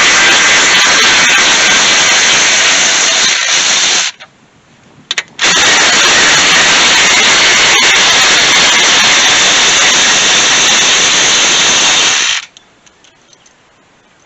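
Power tool running hard as it spins out 10 mm bolts. It runs steadily, stops about four seconds in with a brief blip, then runs again for about seven seconds and cuts off.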